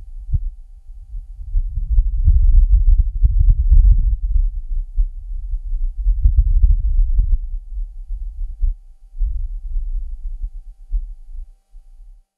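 Low, gusty rumble of Martian wind buffeting the Perseverance rover's microphone, with the rover's own noise filtered out. It swells about two seconds in and again about six seconds in, then dies away and stops just before the end.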